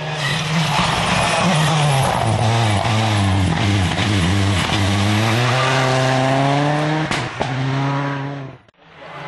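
Rally car engine at speed, its pitch dropping and climbing again as it changes gear through a corner, then rising steadily. A sharp crack about seven seconds in, and the sound cuts away abruptly just before the end.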